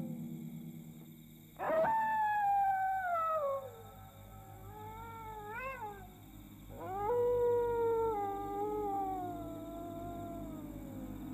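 Canine howling: two long howls, one starting about one and a half seconds in and one about seven seconds in, each sliding slowly down in pitch, with a short rising-and-falling cry between them, over a steady low hum.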